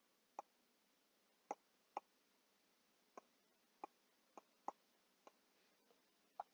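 Faint, sharp clicks, about nine of them at uneven intervals, against near silence.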